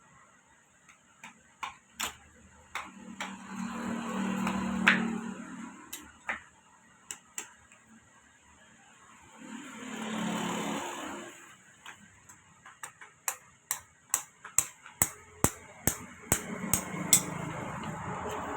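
Sharp hammer taps while a handle is fitted to a khurpa (hand hoe): a few scattered taps, then a quick run of about a dozen near the end. Twice a passing vehicle rises and fades in the background.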